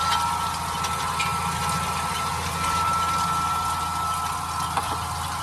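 Massey Ferguson 8S.265 tractor's six-cylinder diesel running steadily under load as it pulls a cultivator through ploughed soil, heard through the open cab window, with a steady high whine over the engine note.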